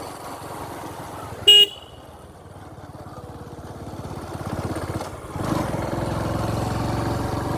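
A vehicle's engine running while on the move, with one short horn toot about a second and a half in; the engine gets louder in the second half, stepping up sharply near the end as it picks up speed.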